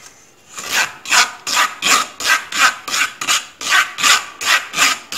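Mango pulp being rubbed through a fine stainless-steel mesh strainer, a rhythmic rasping scrape of about three strokes a second that starts just under a second in, pushing the juice through and holding back the fibres.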